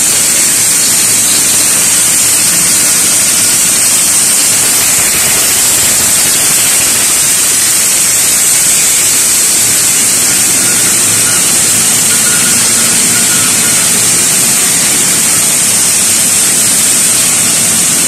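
Bottle-cap compression molding machinery running: a steady, loud, high-pitched hiss with no distinct strokes or beats.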